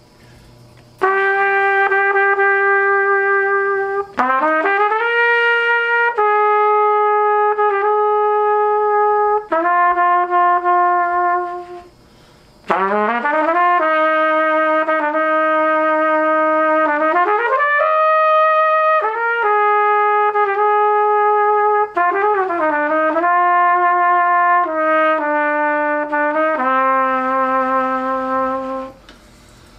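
1947 Martin Committee Deluxe B-flat trumpet playing a melody of long held notes joined by slurs and rising glides, in two phrases with a short break between them.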